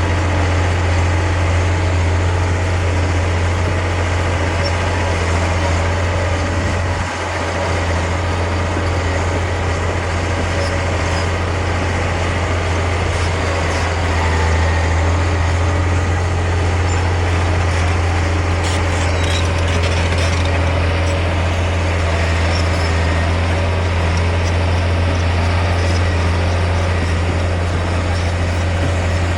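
Heavy diesel engine of a bulldozer running at a steady speed, with a brief dip about seven seconds in.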